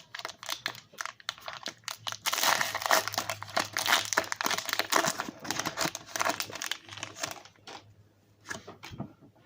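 Foil wrapper of a Pokémon booster pack being torn open and crinkled, a dense crackle that dies down about seven and a half seconds in.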